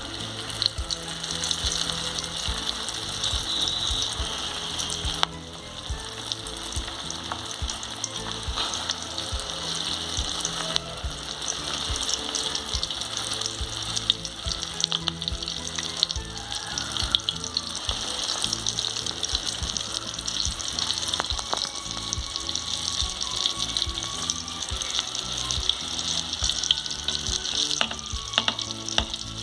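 Egg-battered chiles rellenos frying in hot oil in a stainless steel pan: a steady sizzle with frequent small crackles.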